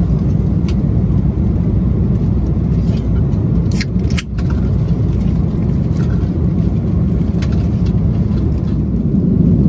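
Steady low rumble of an Airbus A330-300 heard from inside the passenger cabin: engine and airflow noise, with a brief dip about four seconds in and a few faint clicks.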